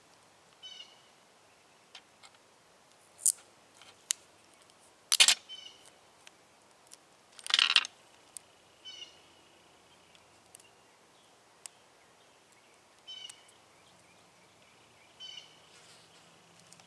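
Sharp clicks and knocks from handling small tools and their packaging, the loudest about five and seven and a half seconds in. A short high chirp recurs every few seconds.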